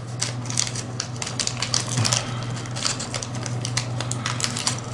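Irregular light clicks and crinkles of small plastic packaging being handled as a prebuilt vape coil is taken out, over a steady low hum.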